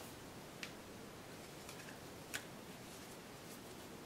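A few faint clicks and taps of a cardboard board book being handled as its pages are turned, over quiet room hiss. The sharpest click comes a little past two seconds in, with a smaller one about half a second in.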